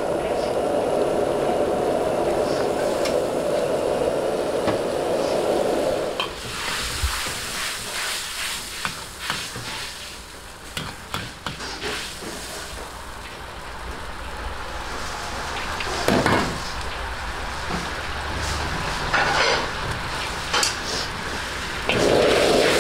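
Gas wok burner running at full flame with a steady rushing sound while the sweet and sour sauce sizzles. The flame is cut back about six seconds in. The sauce then simmers and sizzles under scattered clinks and scrapes of a metal ladle against the iron wok as the pork is stirred in, and the burner rushes back on about a second before the end.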